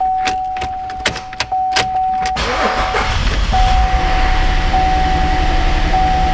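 The 3.6 L V6 of a 2012 Buick Enclave starts: a run of clicks, then the engine catches about two and a half seconds in and keeps running, with a steady high warning chime from the dash over it. The engine has a misfire, traced to cylinder 6.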